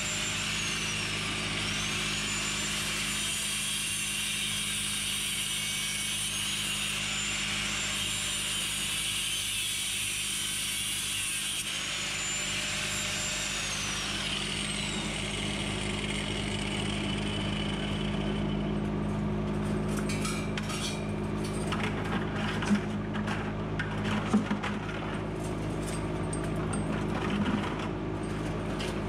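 Angle grinder with a cutoff wheel cutting barbed wire and fence wire wrapped around a flail mower's rotor: a steady high grinding hiss, its whine dipping and recovering several times as it bites. About 18 seconds in the grinding stops and scattered metal clicks and clanks follow, over a steady low hum.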